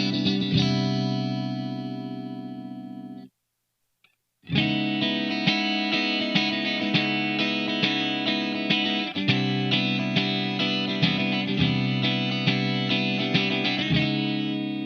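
SLX Hawk Classic 22 HSS electric guitar being played: picked notes over a ringing chord that stops abruptly about three seconds in, then after about a second of silence picked notes resume about twice a second and fade toward the end.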